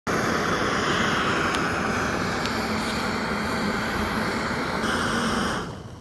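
Gas-canister camping stove burner running at full flame with a steady hiss, dying away near the end as its valve is closed.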